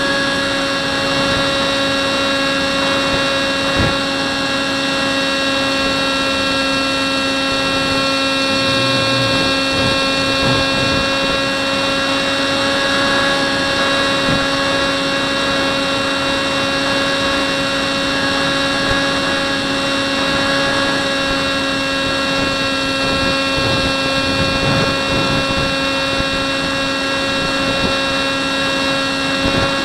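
Hubsan Spyhawk model plane's electric motor and propeller running at a steady pitch, heard from the camera mounted on the plane, over a rush of air.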